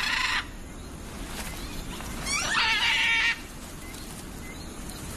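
An animal hissing in two short bursts of about a second each, one at the start and one a little past two seconds in; the second opens with a few quick chirps.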